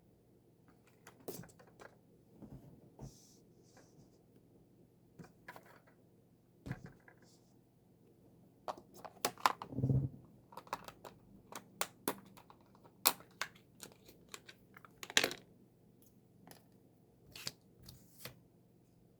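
Photocards being handled and sorted: scattered light clicks, taps and crinkling, with a dull knock about ten seconds in.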